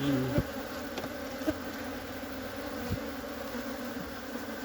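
Honeybees buzzing as a steady hum around a hive opened for a colony transfer, with a few light knocks.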